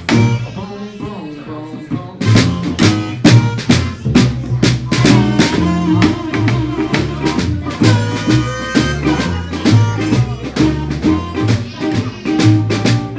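Live blues trio playing: a single drum struck with sticks in a steady beat, an upright double bass walking underneath, and acoustic guitar. After a quieter, sparser opening, the full band comes back in about two seconds in.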